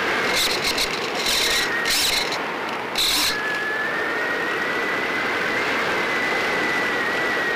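Electric motor and propeller of an EasyStar RC model plane running with a steady high whine, picked up by the plane's own onboard camera. Four short bursts of hissing noise come in the first three seconds or so. Just after that the whine's pitch dips a little, then slowly climbs.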